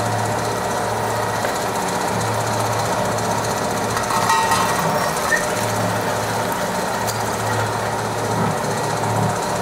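Road-repair machinery running: a loud, steady mechanical clatter with a low hum that comes and goes in stretches of a few seconds.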